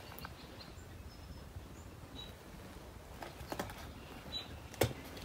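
Scattered footsteps crunching on fallen plaster and broken lath, with one sharper crunch near the end. Small birds chirp faintly a few times.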